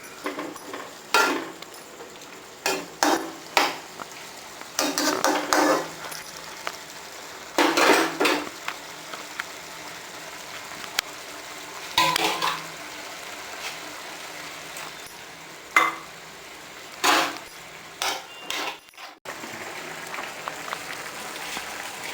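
A metal spoon stirring in a cooking pot, scraping and clinking against the pot's sides in irregular short bursts.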